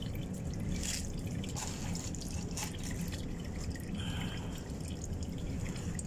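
Engine oil dripping from the drained engine, with light clicks as the oil filter housing is threaded back on by hand, over a steady low rumble.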